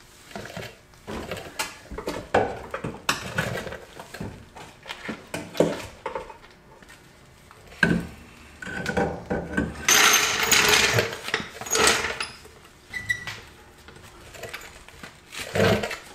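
Irregular metal clanks, knocks and scrapes of a stock Subaru WRX front strut assembly being worked into the wheel well and steering knuckle, with a denser stretch of scraping and rattling about ten seconds in.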